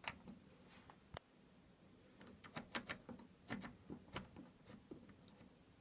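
Faint, irregular clicks from a Hoover washing machine's control panel as its program dial and buttons are worked, about a dozen sharp ticks, most of them in the middle of the stretch.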